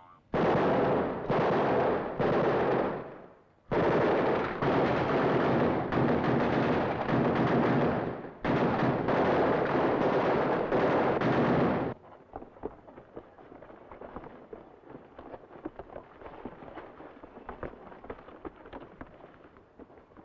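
Several long bursts of automatic machine-gun fire with short gaps between them, each cutting off sharply; the firing stops about twelve seconds in, leaving only faint scattered pops and crackle.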